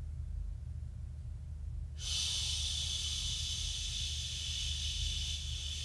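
A woman breathing out on a long, steady 'shh' that starts abruptly about two seconds in, after a silent held breath. This is a singer's breath-management exercise: an even, controlled exhale held over eight counts. A low steady hum sits underneath throughout.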